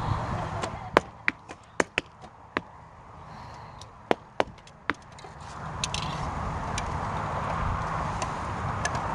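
A quick run of sharp clicks and knocks from a group of youth recurve bows being shot: bowstrings released and arrows striking the targets, about a dozen in the first half, then only steady background noise.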